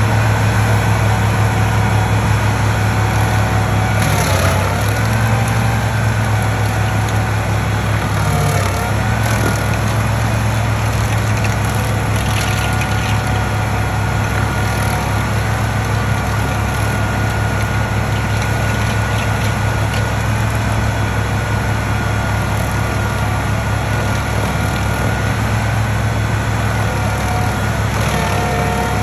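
Large engine of stump-removal machinery running steadily under heavy noise, its pitch dipping briefly twice, about four and about eight seconds in, as it takes load.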